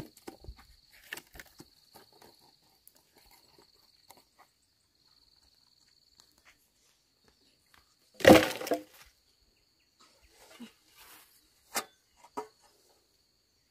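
Scattered light knocks and clatter, with one loud crash about eight seconds in, over a steady high-pitched insect trill.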